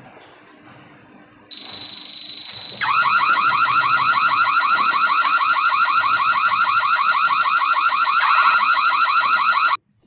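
Water leak sensor's built-in electronic siren going off after its probe detects water: a steady high tone starts, then a fast run of rising chirps, several a second, joins in. It cuts off abruptly near the end.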